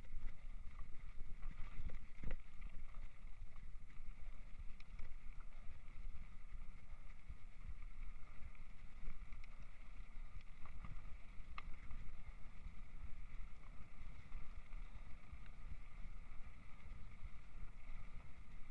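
Mountain bike riding over a rough gravel farm track: a steady rumble of wind and road noise on the bike-mounted camera's microphone, with tyre and frame rattle. Two sharp knocks from bumps, one about two seconds in and one past the middle.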